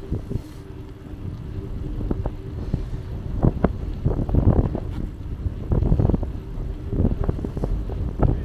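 Bicycle riding heard from a handlebar-mounted camera: wind rumbling on the microphone, with irregular knocks and rattles from bumps along the way.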